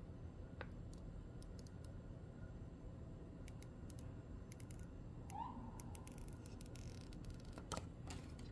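Faint handling sounds of a new iPhone and its cardboard and paper packaging being unpacked. Scattered light clicks, a short scraping rustle a bit past the middle, and two sharper clicks near the end, over a low steady hum.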